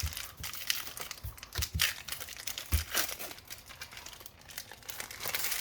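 Foil Pokémon booster pack wrapper crinkling and tearing as the pack is opened, a run of irregular sharp crackles with a few light knocks.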